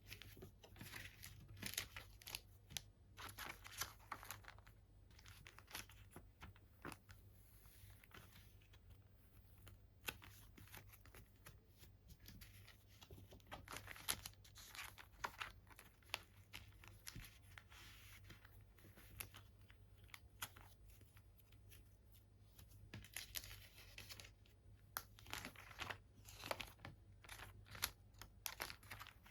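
Faint crinkling and rustling of packaging being handled, in short spells with quieter gaps between.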